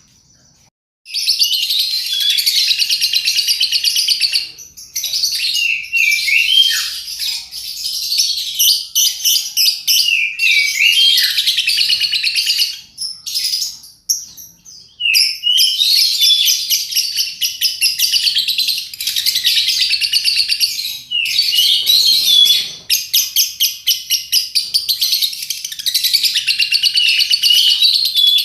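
Lovebird singing long runs of rapid, high-pitched chattering, each lasting several seconds, broken by short pauses.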